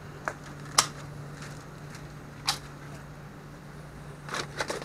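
A few brief crinkles and rustles of plastic trash bags being handled in a dumpster, with a small cluster of them near the end, over a steady low hum.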